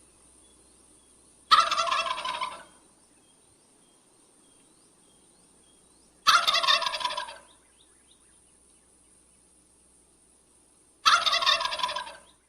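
Male wild turkey gobbling three times, about five seconds apart. Each gobble is a loud, rapid gurgling call lasting about a second that trails off at the end.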